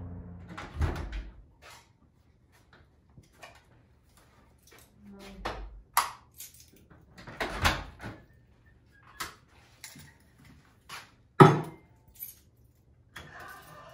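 Scattered clicks, knocks and thuds of things being handled and set down on a wooden workbench in a small workshop, with short quiet gaps between them; the loudest thud comes about eleven and a half seconds in.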